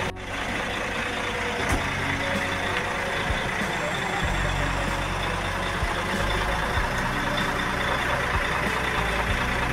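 Diesel coach engines idling in a bus terminal, a steady low hum under a constant din with indistinct voices.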